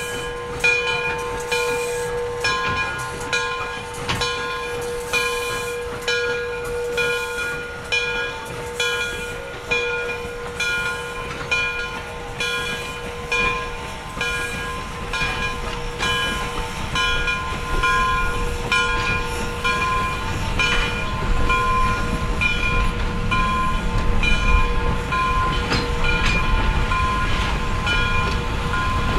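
Steam locomotive's bell ringing steadily, a little faster than one strike a second, each strike ringing on. The low rumble of the passenger cars rolling past grows over the last third.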